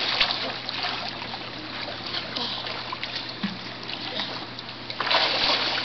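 Swimming-pool water splashing and sloshing as children throw it at each other with their hands, with a louder, longer splash about five seconds in.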